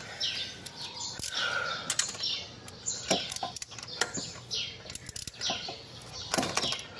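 Small birds chirping repeatedly in short falling chirps, with scattered sharp clicks and taps from hand work fitting nuts onto the scooter's exhaust.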